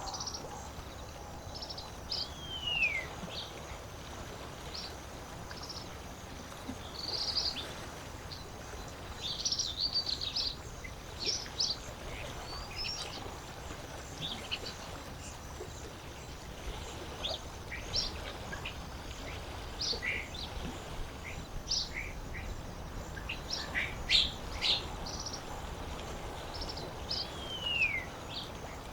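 Wild birds chirping and calling, with short calls scattered throughout and a clear falling whistle twice, once near the start and once near the end, over a steady soft background hiss of lakeside water and air.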